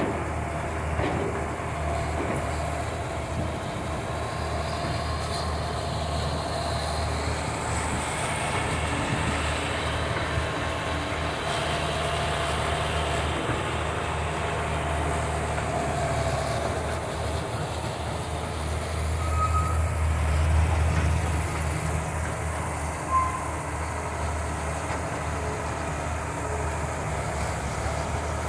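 Diesel engine of a Hitachi crawler excavator running steadily under load as it digs and loads earth, with a dump truck alongside. The hum swells about two-thirds of the way through, and a single sharp knock follows shortly after.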